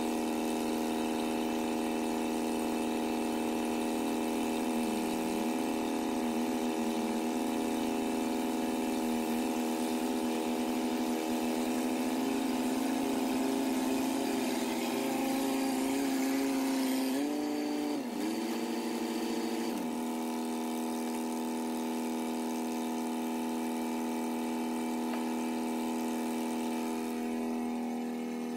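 International Harvester crawler dozer's diesel engine running steadily as the machine drives in. Its pitch wavers a few seconds in and shifts up, then drops, a little past the halfway point.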